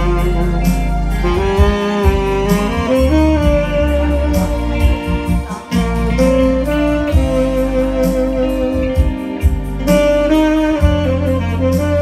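A saxophone plays a jazz melody over a backing of bass, piano and drums.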